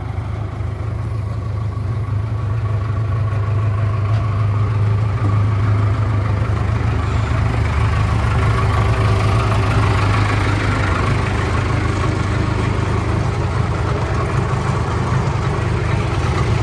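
The 67 hp four-cylinder diesel engine of a 1988 Case 580K loader backhoe running steadily, growing a little louder over the first several seconds and then holding.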